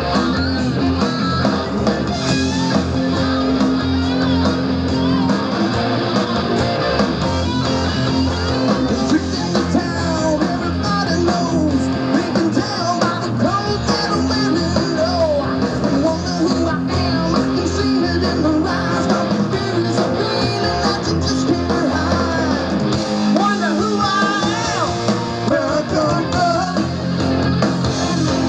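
Live rock band playing through a PA: electric guitars, bass and drums.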